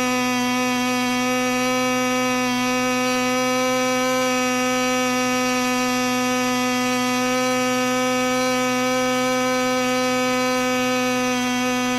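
O.S. Engines 15LA two-stroke glow engine running at high rpm on an 8x4 propeller: a steady, high-pitched buzz. Its pitch shifts slightly as the needle valve is turned to set the mixture.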